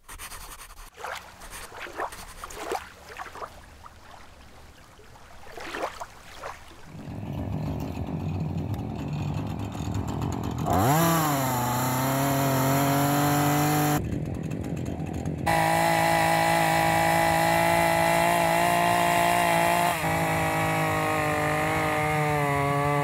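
Scratchy strokes like a pen writing for the first several seconds, then a gas chainsaw running: it revs up sharply a little before halfway and holds at high speed, with a brief drop in the middle of the second half and another change near the end.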